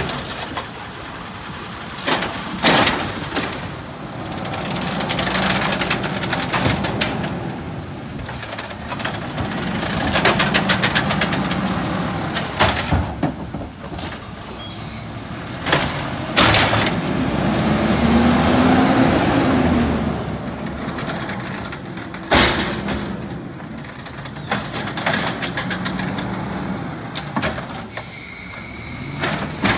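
Natural-gas side-loader garbage truck running while its automated arm lifts curbside carts and dumps them into the hopper. The engine revs up and back down as the arm works, with several loud knocks and bangs as the carts hit and empty. Near the end the truck pulls away.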